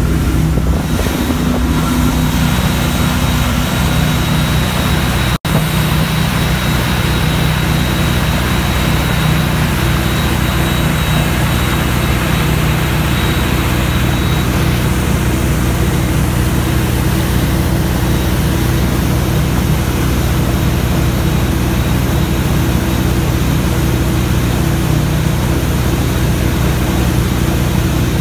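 Mastercraft wakesurf boat's inboard engine running steadily under way, with the rush of water from the wake behind it. The sound cuts out for an instant about five seconds in.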